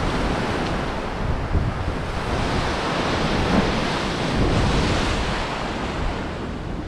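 Sea waves breaking and washing against the foot of a stone seawall, with wind rumbling on the microphone. The hiss of the wash swells around the middle.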